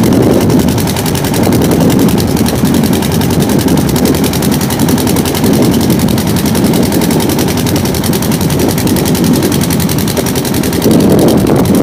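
Motor boat engine running steadily with a fast, even thumping, mixed with wind and rough water around the hull.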